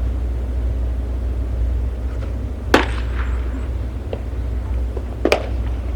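Baseballs smacking into a leather catcher's mitt in a bullpen: two sharp pops about two and a half seconds apart, over a steady low rumble.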